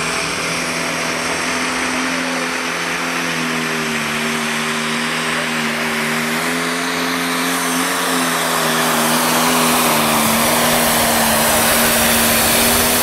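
John Deere pulling tractor's diesel engine running flat out under load during a pull: a loud, steady drone that holds its pitch with small dips, growing louder near the end as the tractor comes close.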